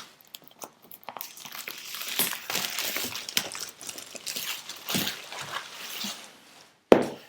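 Packaging of a MacBook Pro box being unwrapped: irregular crinkling and tearing with small clicks, then a sharp knock near the end.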